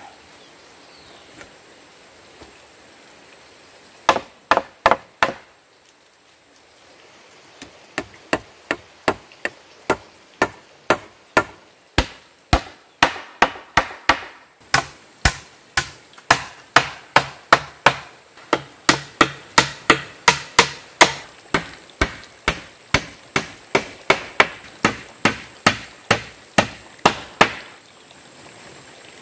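Hammer blows on a timber frame joint, driving a crossbeam against a wooden post: a quick run of about five strikes, a short pause, then steady hammering at about two to three strikes a second that stops near the end.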